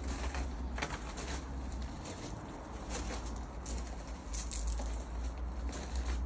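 Footsteps crunching on gravel, irregular steps of someone walking slowly, over a steady low rumble.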